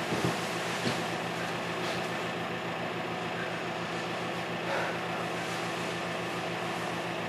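Steady room tone: a low mechanical hum with hiss, broken by a few faint ticks.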